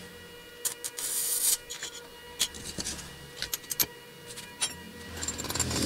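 Scattered sharp metal clicks and taps, with a short scraping burst about a second in, as a motorcycle cam chain tensioner part is worked in a steel bench vise. A flurry of clicks comes near the end.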